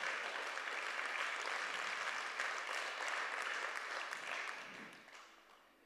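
Congregation applauding, the clapping dying away near the end.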